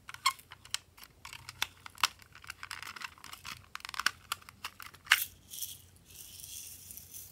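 Irregular clicks and knocks of a hollow plastic toy container being handled and turned in the hands, loudest about five seconds in. Near the end comes a steady hiss of green glitter pouring from a small plastic scoop onto slime.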